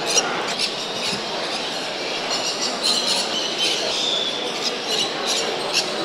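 Many caged show birds chirping and squawking in short, sharp high calls over the steady murmur of a crowd.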